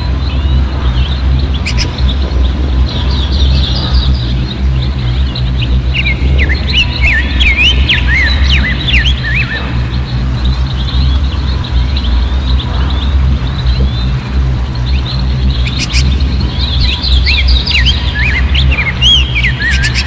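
Shallow rocky stream running steadily, with many small birds chirping over it in busy flurries of quick, rising and falling calls, thinning out in the middle and picking up again near the end.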